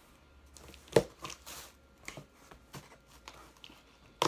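Cardboard box and packaging being handled during an unboxing: a sharp knock about a second in, scattered light taps, scrapes and rustles, and another sharp knock at the end.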